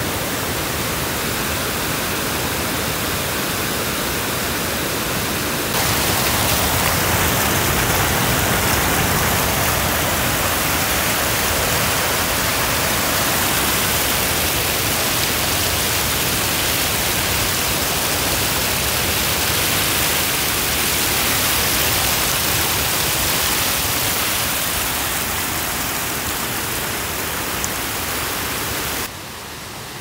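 River water rushing across the slatted bamboo platform of a yana fish weir: a loud, steady hiss of flowing and splashing water. It gets louder about six seconds in and drops back quieter near the end.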